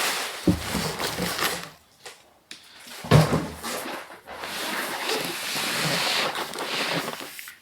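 Cardboard and paper packaging rustling as it is handled, with a knock about three seconds in.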